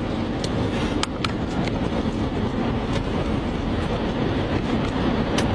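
A tornado's wind, a steady loud low rumble, with a few sharp ticks of small objects striking the vehicle, about a second in and again near the end.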